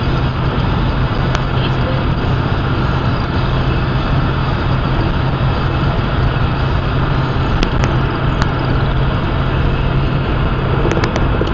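Steady road noise inside a moving car at highway speed: tyre rush on wet pavement over a low, even engine drone. A few light ticks come about a second in, twice around the middle and near the end.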